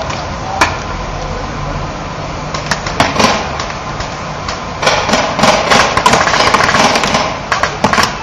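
Paintball markers firing across a field. A few single pops come early, then rapid, overlapping volleys of shots from about five seconds in, over a steady rumbling background noise.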